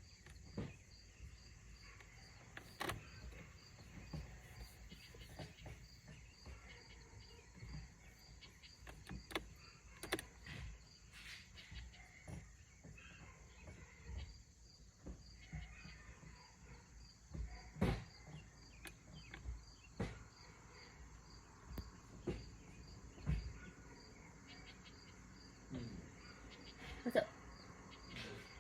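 Scattered clicks and knocks of hand tools working on the car, over a steady chirping of crickets.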